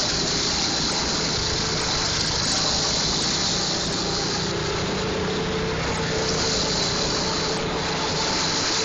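Go-kart engines running steadily: a continuous engine drone under an even rushing noise, its pitch drifting slightly.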